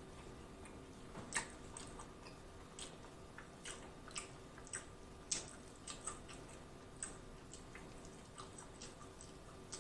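Close-miked eating of chicken wings: irregular wet smacks and clicks of biting and chewing meat off the bone, a couple of them sharper than the rest, over a faint steady hum.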